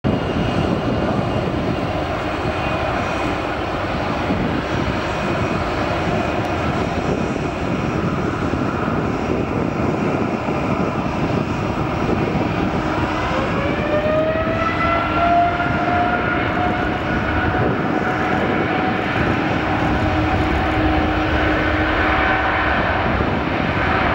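Boeing 787-9's GE GEnx turbofan engines running on the runway with a steady roar, then spooling up to takeoff power about halfway through: a whine rises in pitch over a couple of seconds and then holds as a steady high tone over the roar.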